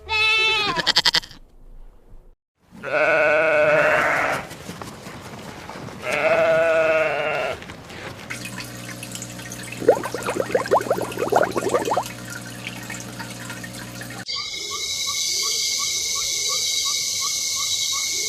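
Two long bleats from a sheep or goat, about three seconds apart, after a short call near the start. Later comes a different steady hiss with a quickly repeating high tone.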